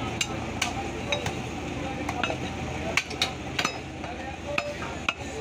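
Irregular sharp knocks of butchers' cleavers chopping beef on wooden stump blocks, over background voices.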